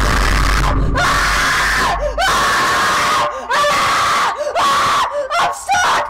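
A person screaming loudly over and over, a string of long screams of about a second each with short breaks between them.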